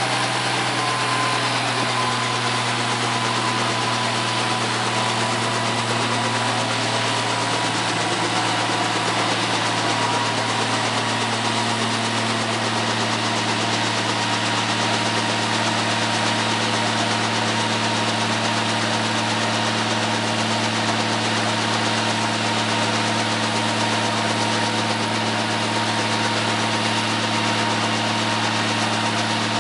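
Bell 47J2-A helicopter's six-cylinder Lycoming piston engine idling steadily on the ground with the main rotor turning slowly. A steady whine runs over the engine and eases slightly lower in pitch over the first ten seconds or so.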